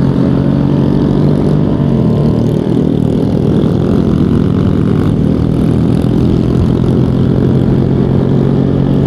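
Honda motorcycle engine running steadily at cruising speed, with a low wind rumble over the microphone.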